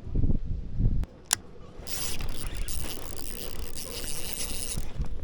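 Fishing reel's drag buzzing for about three seconds as a hooked fish pulls line off, shortly before the line breaks. Before it come low handling rumble and a sharp click.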